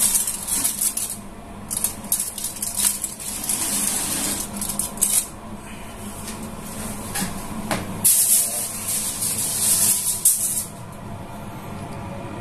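Wrapping material being crinkled and rustled in several bursts, the longest near the end, with a sharp click in between, over a steady low hum.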